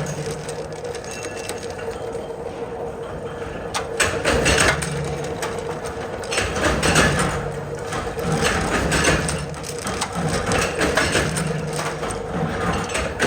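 Factory machinery running with a steady hum under irregular metallic clatter and occasional sharp knocks.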